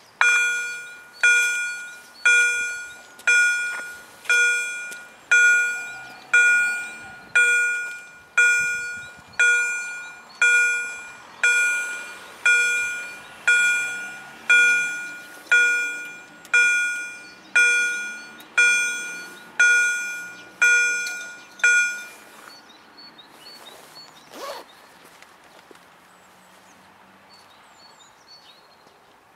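Level-crossing warning bell from EHL-S10 electronic bell loudspeakers, striking about once a second with each ring dying away, about twenty strikes in all, then stopping; it warns that the crossing is closing for an approaching train. A single knock follows a couple of seconds after the bell stops.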